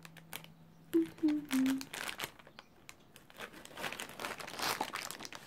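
Packaging crinkling and rustling as a boxed figure is unpacked by hand. A few sharp clicks come in the first second, and the crinkling grows denser in the second half.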